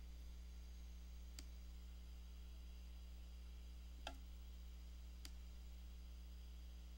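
Three short, sharp computer mouse clicks, about a second and a half in, around four seconds in (the loudest, a quick double) and a little after five seconds, over a steady low electrical hum.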